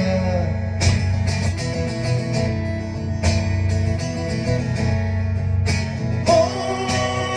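Steel-string acoustic guitar strummed in a steady rhythm, played live as a solo song accompaniment.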